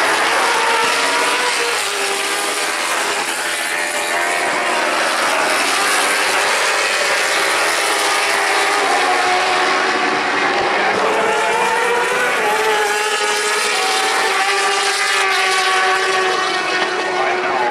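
A pack of World Superbike race bikes passing at speed, several litre-class four-stroke engines heard at once, their pitch rising and falling as they go by.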